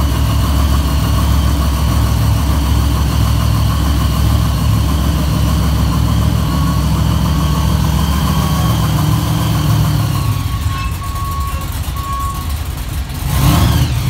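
Grave Digger monster truck's supercharged V8 running low and steady as the truck creeps up the ramps into its trailer. The engine eases off about ten seconds in, then swells louder again just before the end.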